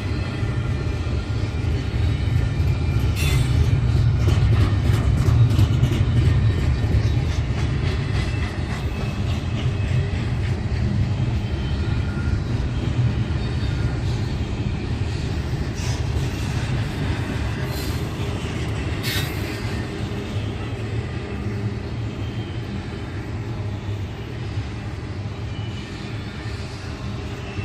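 Train rolling past with a steady low rumble of railcars, loudest a few seconds in and slowly easing off. Scattered wheel clicks and a faint thin squeal run over it.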